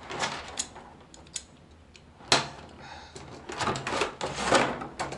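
Clear plastic blister tray crackling and clicking as it is handled, with a sharp snap a little over two seconds in and a dense run of crackling near the end.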